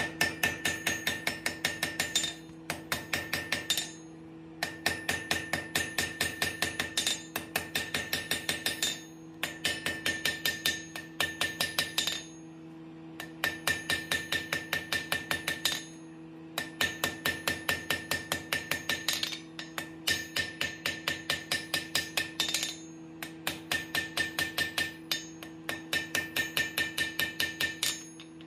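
Hand hammer striking steel on an anvil in quick runs of about four to five ringing blows a second, with short pauses between runs, as the blacksmith rounds and shapes the nose of a forged steel alligator's head. A steady low hum runs underneath.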